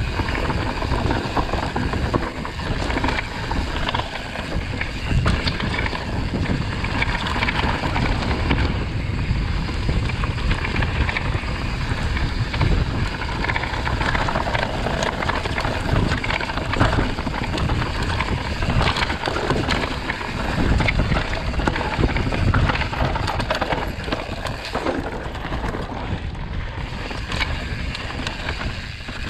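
Wind buffeting the microphone of a camera on a moving ride, a continuous rumbling rush with no clear engine note.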